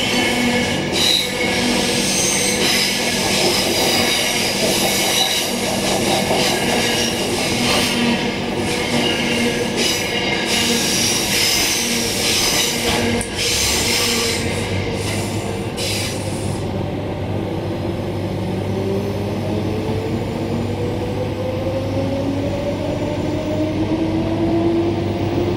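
A Queensland Rail EMU electric multiple unit running, heard from inside the car: wheel and rail noise with high-pitched squealing and rattling for the first two-thirds. After that it settles into quieter running with a steady low hum and a whine that rises slowly in pitch as the train picks up speed.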